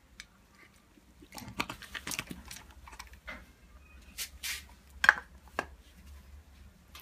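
Banana-leaf lining rustling and crackling as cooked chicken and water spinach are pulled out of a bamboo tube. Irregular handling noise with scattered sharp clicks; the loudest click comes about five seconds in.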